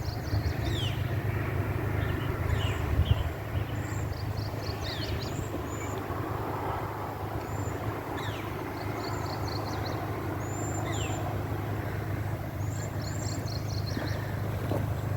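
Several songbirds singing: repeated short down-slurred notes, quick stuttering trills and high thin whistles, over a steady low rumble.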